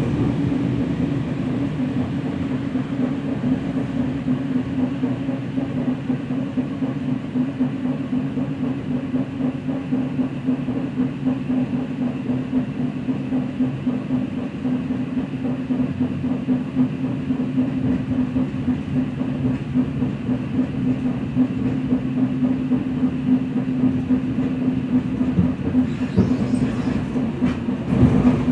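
Inside an EN57 electric multiple unit running at speed: steady rumble of the wheels on the rails with a steady low hum.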